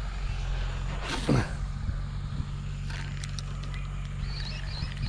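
JCB excavator's diesel engine running steadily, a low drone, with a brief downward whoosh about a second in.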